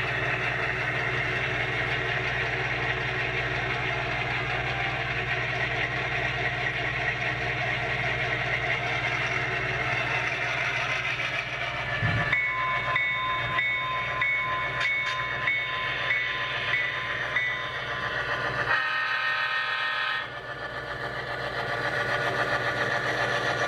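Diesel locomotive sounds from the HO-scale model: a steady engine idle for about the first half. Then a horn sounds together with a rapidly repeating bell-like ring for several seconds, before the sound changes and drops lower near the end.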